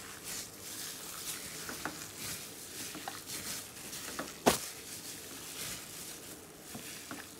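A hand kneading raw beef mince with yogurt and spice paste in a glass dish: soft, wet squishing with small scattered clicks, and one sharp knock about four and a half seconds in.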